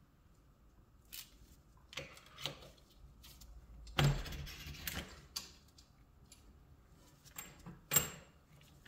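Small metal parts of a pistol's recoil spring and guide rod assembly clicking and knocking as they and the assembly tool are handled and set down: a handful of separate clicks, the loudest a knock with a dull thud about four seconds in and a sharp click near the end.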